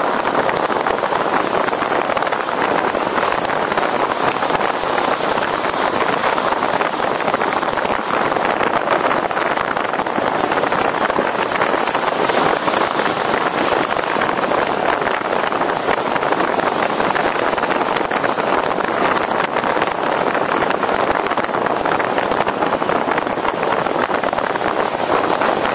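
Steady rush of airflow and road noise from a moving car, heard through the microphone of a camera mounted on the car's roof.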